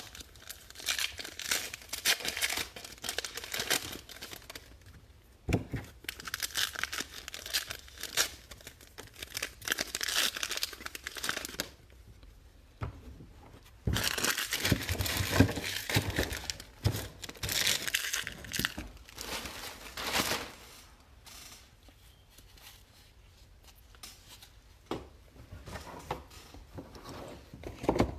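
Baseball card pack wrappers being torn open and crinkled by hand, in uneven spells of tearing and crinkling with a quieter stretch near the end.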